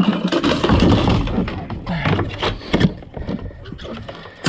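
Knocks and rustles of gear being handled and stowed on a plastic fishing kayak's deck, with a few sharp knocks, over steady wind and water noise.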